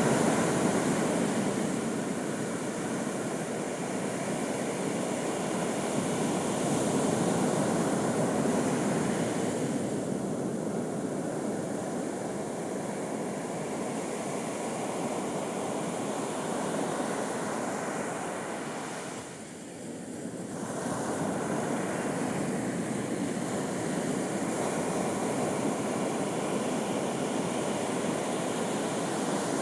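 Sea surf breaking and washing ashore in a continuous rushing wash that swells and eases with each wave, with a short lull about two-thirds of the way through.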